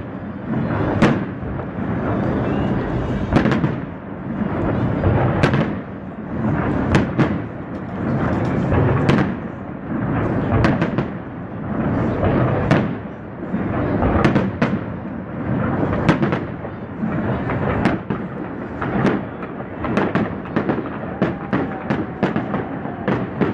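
Aerial firework shells bursting in steady succession: deep booms mixed with many sharp cracks, the cracks coming thicker and faster near the end.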